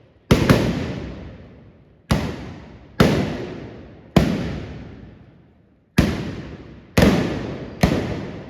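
Trabucs (Catalan blunderbusses) fired with black-powder blank charges in a galejada: eight loud, sharp shots at uneven intervals, two of them in quick succession near the start. Each bang rings out in a long echoing decay.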